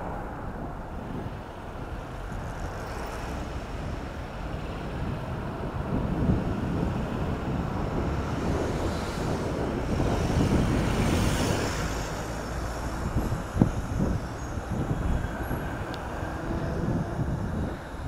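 Strong headwind rumbling on the microphone of a camera on a moving bicycle, mixed with city traffic noise. It swells louder with added hiss around the middle, and there is one sharp knock about three-quarters of the way through.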